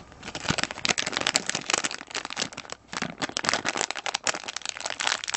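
Foil-lined plastic blind bag of a Hatchimals CollEGGtibles toy crinkling and crackling as it is pulled open and handled by hand, in a rapid irregular run of crackles.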